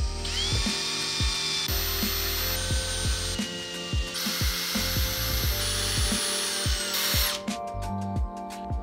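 Makita 18V cordless drill drilling holes in aluminium square tubing. The motor whine rises as it spins up, then jumps between different pitches over a series of short runs, and stops about seven seconds in. Background music with a steady beat plays under it.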